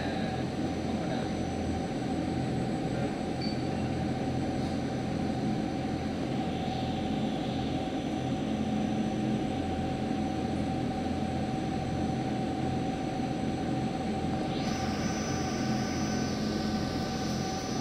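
Steady drone of a river boat's engine while under way, with a hiss and a few faint high tones joining about fifteen seconds in.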